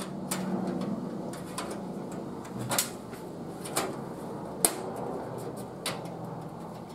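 Thin metal I/O shield being pressed into the rear opening of a steel PC tower case: rubbing and handling noise with a handful of sharp metallic clicks, the loudest about two thirds of the way through.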